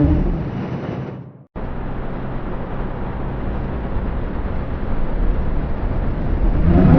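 Cartoon vacuum cleaner running: a steady, fairly loud noisy drone with a low hum. It cuts out to silence briefly about a second and a half in, then comes back and swells slowly.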